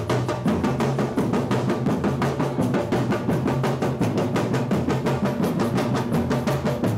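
A street drum troupe playing large marching bass drums and snares together in a fast, even rhythm, about three loud beats a second with quicker strokes between, over a steady low bass tone.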